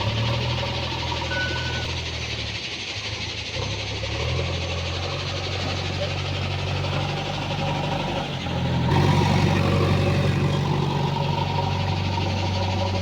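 JCB 3DX backhoe loader's diesel engine running under working load while digging and loading mud, its pitch shifting with the throttle and getting louder about nine seconds in.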